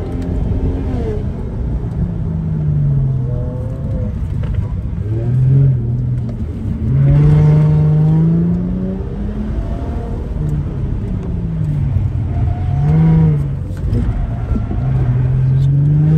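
Car engine accelerating and easing off again and again as the car is driven hard through an autocross cone course: the engine note climbs in short pulls of a second or two, then drops as the driver lifts. Steady wind and road rumble in the open-top cabin underneath.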